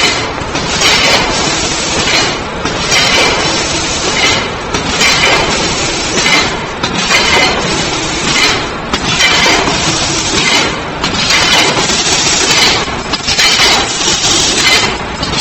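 Automatic mesh bag cutting and sewing machine running: continuous mechanical clatter with a louder stroke recurring every second or two as it works through its cycle.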